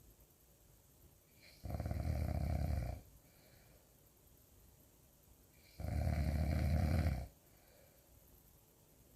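Loud snoring: two long snores, each about a second and a half, about four seconds apart.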